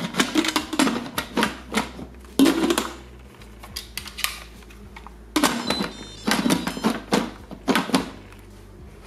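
Instant Pot lid being fitted and twisted onto the pot, rattling and clicking as it fails to seat. Two runs of quick clicks and knocks, with a pause of about two seconds between them.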